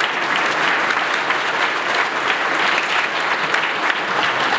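A large congregation applauding, many people clapping together at an even level.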